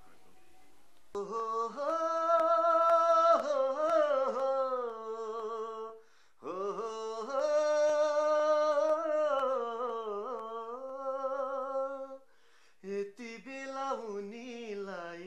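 A man singing unaccompanied in a small room: long wordless held notes with a wavering ornament, in two long phrases with a short breath between, then shorter sung phrases near the end, opening a Nepali song.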